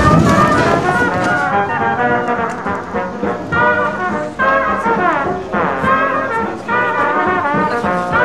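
Music led by brass instruments, playing a melody at a steady level.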